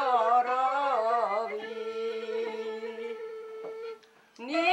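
Folk song sung to the accompaniment of a wooden end-blown flute: the line ends on a long held note that dies away about four seconds in, and after a short pause the next line begins near the end.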